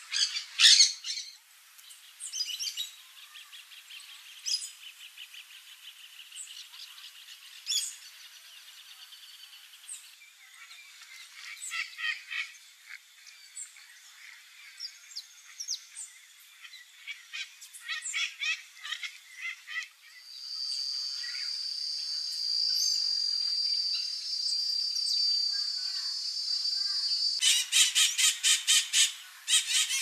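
A run of wild parrot calls: harsh Nanday parakeet squawks in the first second, scattered softer calls and trills, blue-winged macaw calls around the middle, and near the end loud rapid screeching from white-eyed parakeets, several calls a second. In between, for several seconds, a steady high drone runs under the calls.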